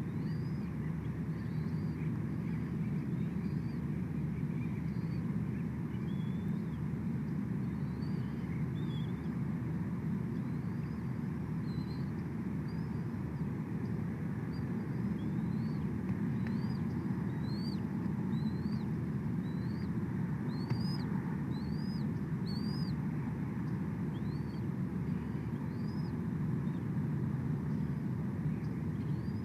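A bird's short, high, rising chirps repeat over a steady low rumble. The chirps grow louder and come closer together about two-thirds of the way through.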